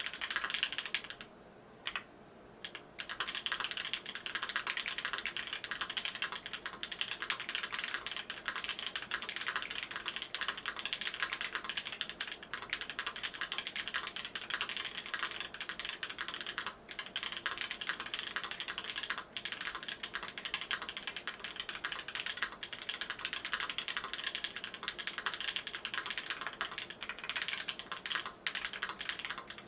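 Fast typing on an Ai03 Polaris custom mechanical keyboard with lubed Holy Panda tactile switches in a brass plate and GMK keycaps: a dense, continuous run of keystroke clacks, with a short break about a second in.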